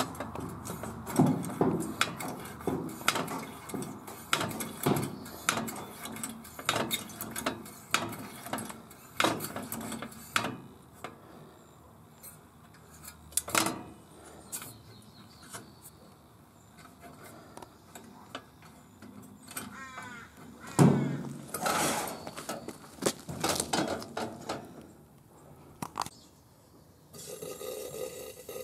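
Coleman Model 220K gas lantern's pump plunger being worked in and out to pressurize the fuel tank: rhythmic strokes about once a second, a short squeak about two-thirds through, and more strokes. Near the end a steady hiss starts as the fuel valve is turned open.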